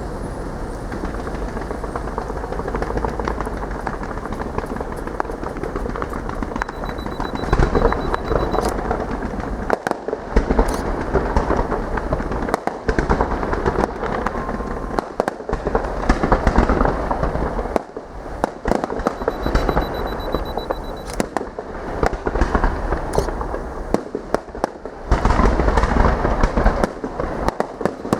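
Fireworks display: a dense, continuous barrage of bangs and crackle, with several louder flurries of bursts.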